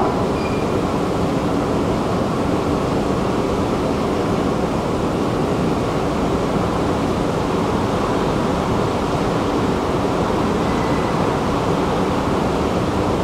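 Subway escalator running, heard from on its moving steps: a steady, even low rumble.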